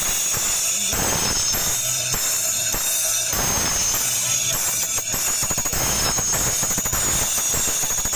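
Music played through the treble section of a miniature sound system for a treble check: a thin, hissy, high-heavy sound with a strong steady band up top, quick rhythmic ticks and little bass.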